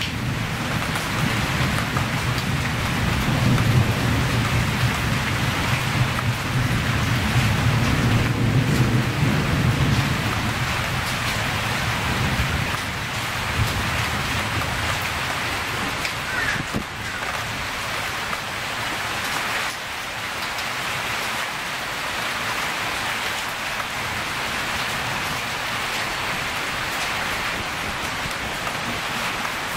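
Steady storm rain. A low rumble of distant thunder runs through roughly the first twelve seconds and then dies away.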